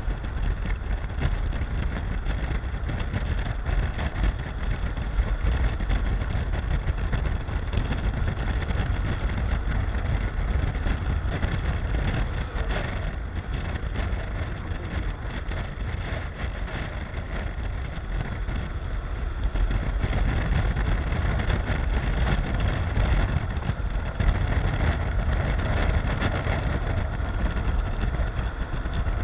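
Honda NC750X motorcycle's parallel-twin engine running steadily at road speed, mixed with wind rush on the microphone and tyre noise.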